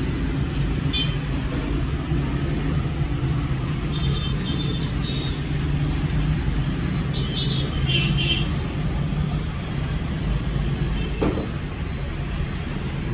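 Steady low background rumble, with a few brief high chirps about four seconds in and again around eight seconds, and a single sharp knock near the end.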